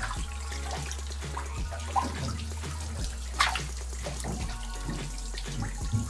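Water running from a shower hose into a bunch of green self-tying water balloons as they fill over a bathtub, a steady rush with a few sharp drips or splashes, the clearest about two and three and a half seconds in.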